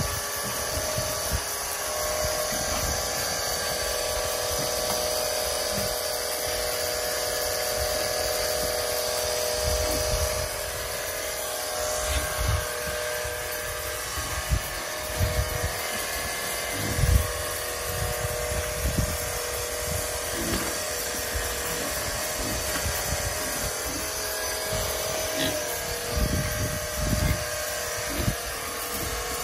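A small motor running steadily with a constant hum and hiss, with irregular low thumps and knocks in the second half.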